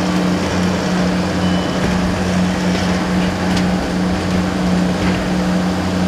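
Tractor engine running steadily under load in high gear, pulling on ropes to right a toppled shed; an even hum that neither revs up nor drops.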